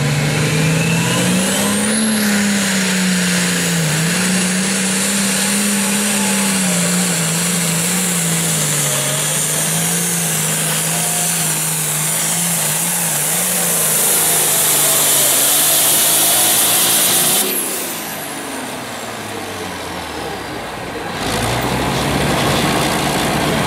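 Turbocharged diesel engine of an International Harvester pulling tractor running hard at high revs under full load, with a high turbo whistle above the engine note. The pitch wavers as it pulls, then about 17 seconds in the engine drops off and winds down as the pull ends.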